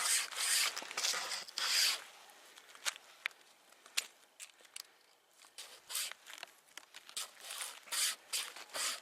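String saw rasping back and forth through wood: a quick run of strokes, about four a second, for the first two seconds, then slower, scattered strokes with small clicks.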